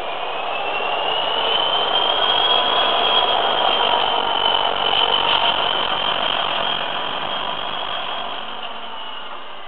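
Class 59 diesel locomotive passing slowly under power, its EMD two-stroke V16 engine accelerating. A high whine rises in pitch over the first couple of seconds and then holds steady. The sound is loudest as the locomotive draws level and fades as the wagons follow.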